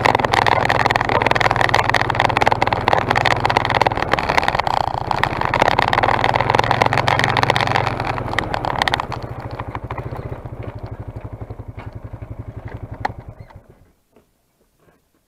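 ATV engine running while riding, then dropping to a slow idle about nine seconds in, with its individual firing pulses audible. The engine cuts off shortly before the end as it is switched off.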